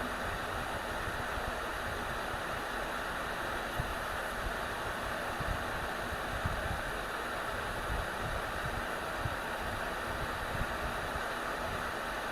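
Steady hiss of blowing air from electronics bench equipment, with faint irregular low rumbles underneath.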